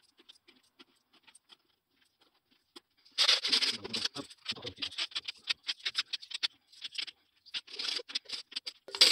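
500-yen coins clinking: a few faint clicks as coins are slid on a wooden table, then from about three seconds in a loud jingle of a hand rummaging through the coins in a plastic coin bank, followed by a run of coins clicking down one at a time on the table.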